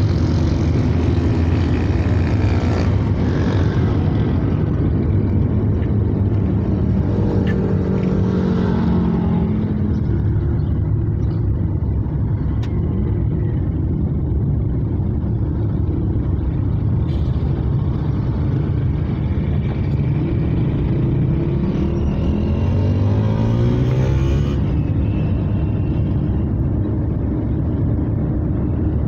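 Car interior noise while driving on a wet road: a steady engine and road rumble with tyre noise. An engine's pitch rises twice, at about eight seconds and again at about twenty-two seconds.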